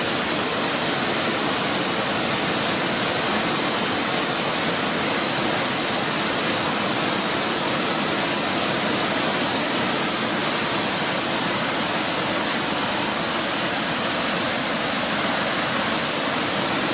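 Steady, even rush of a mountain waterfall and its cascades, a continuous hiss of falling water that neither swells nor breaks.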